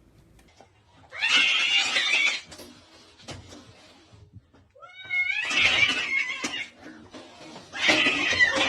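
A pet animal's loud cries: three drawn-out, rough calls of one to two seconds each, the second opening with falling pitch glides.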